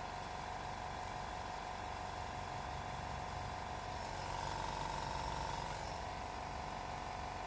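SMD pick-and-place machine running with a steady motor hum and whine, which grows louder for about two seconds midway.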